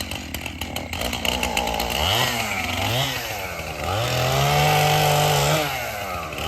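Two-stroke chainsaw engine idling, blipped up twice about two and three seconds in, then revved and held at high speed for about two seconds before dropping back near the end.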